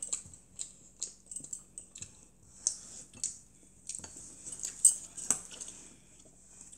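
A child eating with stainless-steel chopsticks and a spoon: irregular light clicks and clinks of metal on ceramic bowls, mixed with chewing and mouth sounds.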